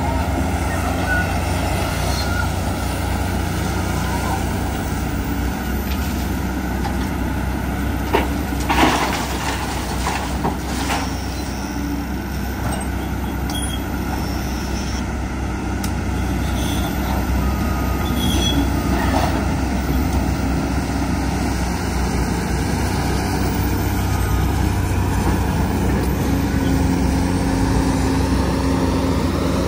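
Heavy diesel engines of a Caterpillar hydraulic excavator and dump trucks running steadily. A few sharp knocks come about eight to eleven seconds in.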